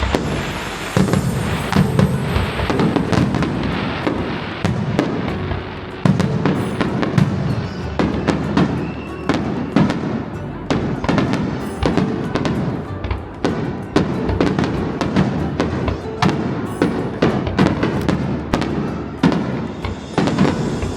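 Fireworks display: a rapid, continuous run of sharp bangs and crackles, with music playing underneath.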